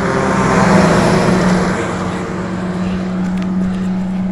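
Fire engine running close by: a steady low engine hum under a rushing noise that swells about a second in, as of the truck moving past.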